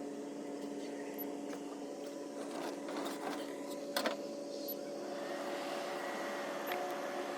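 A sharp click about four seconds in, then the evaporative (swamp) cooler's blower fan comes up and runs with a steady rush of air and a whirring hum.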